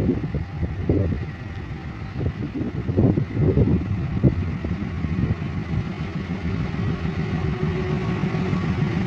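Diesel locomotive engine running under load as a train departs, a steady low rumble with a few short clatters in the first few seconds, settling into a steadier engine note near the end.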